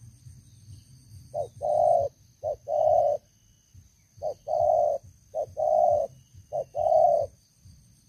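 Spotted dove cooing loudly in short-long note pairs: two pairs about a second and a half in, then after a short pause three more pairs.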